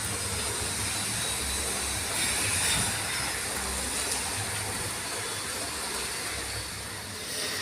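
Steady rain falling, a continuous hiss of drops with a low rumble underneath that swells a little about two seconds in.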